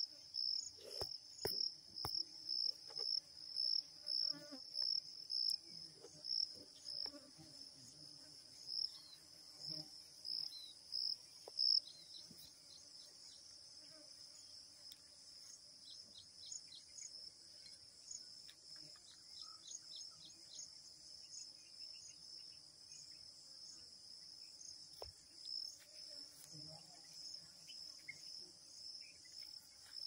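Insects chirping: a high chirp repeated about twice a second over a steady, higher-pitched insect trill. About twelve seconds in, the chirping grows fainter and turns into quieter, quicker pulses.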